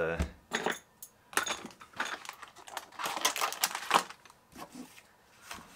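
Thin pry tool scraping and clicking as it is worked under a 2015 15-inch MacBook Pro battery to break it free of its adhesive tape: irregular short scratchy scrapes and clicks, busiest in the middle.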